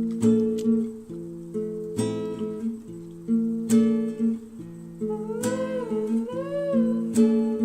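Acoustic guitar music: strummed chords struck about once a second, with a wavering, sliding melody line coming in about two-thirds of the way through.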